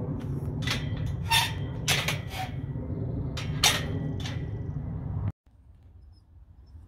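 Footsteps crunching irregularly on a dry dirt-and-gravel track over a steady low rumble on the microphone. The sound drops suddenly to a faint hiss about five seconds in.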